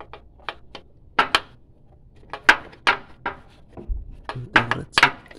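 Metal hand tools clicking and clanking against metal parts under a car while the starter motor is being worked on. An irregular string of sharp knocks, the loudest about two and a half seconds and five seconds in.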